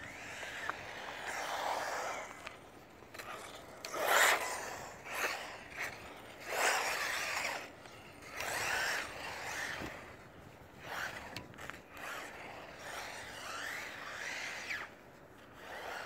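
HSP XSTR Pro electric RC buggy with a 4370KV brushless motor driving in short bursts, its whine rising and falling with the throttle, and the tyres scrabbling as they lose grip on slippery tarmac. The loudest bursts come about four and six and a half seconds in.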